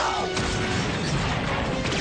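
Fast action-score music mixed with cartoon battle sound effects: energy-blaster shots with quick falling zaps, and crashing impacts.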